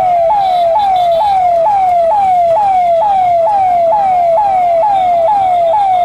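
Electronic siren wailing in a fast repeating pattern: each cycle jumps up in pitch and slides down, a little over twice a second. It is the signal for people to stop and stand still, masked.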